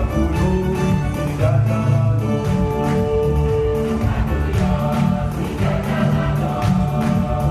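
Live performance by a large choir singing together, backed by hand drums with steady strokes and a keyboard.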